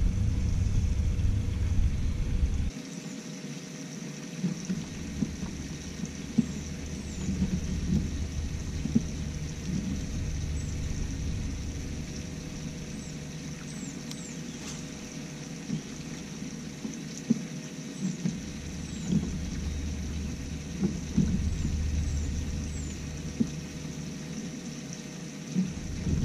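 Outdoor ambience on a small boat: a low rumble cuts out abruptly a few seconds in, then comes back and drops away several times. Light knocks and faint, short, high bird chirps come through over it.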